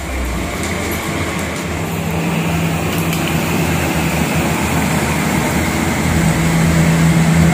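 Palak koftas deep-frying in a kadhai of hot oil, a dense steady sizzling and bubbling over a low hum, growing gradually louder.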